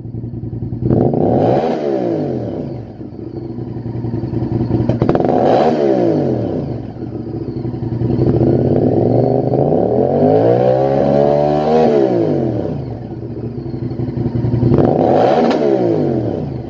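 Honda VTR1000's 90-degree V-twin engine, fitted with a Lextek SP8C carbon-fibre slip-on silencer, idling and being revved while the bike stands still. There are quick throttle blips about a second in, about five seconds in and near the end, and a longer rev in the middle that rises, holds for a few seconds and drops back to idle.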